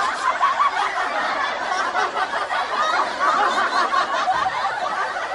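Hearty laughter, a dense, unbroken stretch of overlapping chuckles and snickers.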